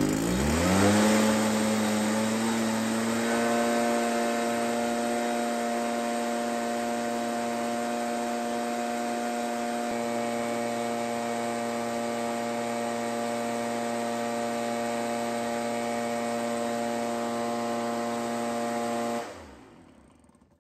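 The two-stroke engine of a Stihl backpack leaf blower runs at locked full throttle under load. It revs up over the first second or two and then holds a steady drone. Near the end it cuts out and winds down.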